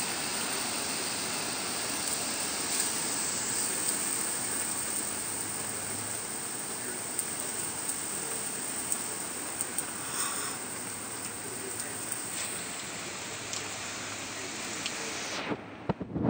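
Steady rush of strong storm wind during a tornado warning, with a few faint clicks. It cuts off abruptly near the end, followed by a few knocks.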